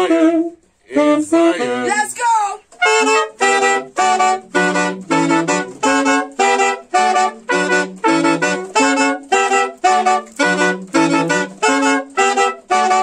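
Live horn ensemble of three saxophones (one a tenor) and a trumpet playing a reggae tune. The horns play short, detached chords in a steady rhythm.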